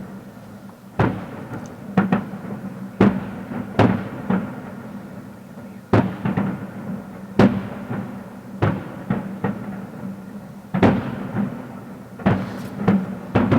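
Fireworks display shells bursting: about a dozen loud bangs at irregular intervals, roughly one a second, each trailing off in an echo.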